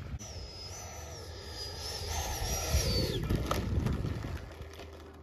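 A radio-controlled model jet rolling out on the runway after landing. Its engine makes a thin, high whine that holds with small steps in pitch, then falls away about three seconds in as the power comes off, over a low rumble.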